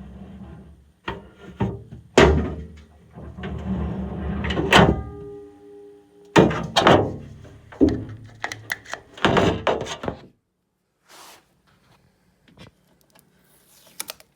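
A run of knocks and thunks from a microwave drawer unit being handled, with a short steady tone about five seconds in.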